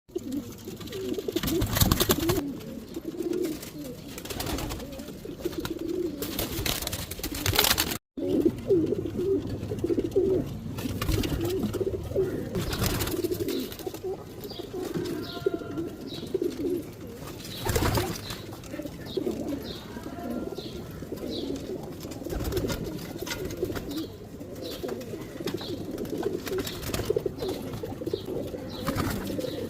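Many domestic pigeons cooing together, a continuous low warbling chorus, with a few short loud noises now and then.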